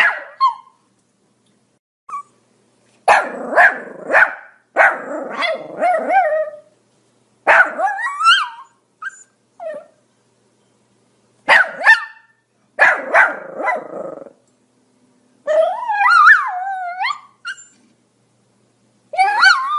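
Pomeranian barking in short runs of high, yappy barks separated by pauses of a second or more. About two-thirds through comes a longer, wavering call that slides up and down in pitch.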